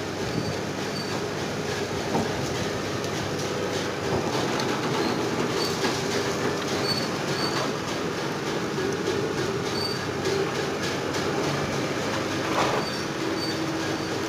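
Tractor engine running steadily as it reverses a loaded Jeulin tipping trailer into the grain intake shed.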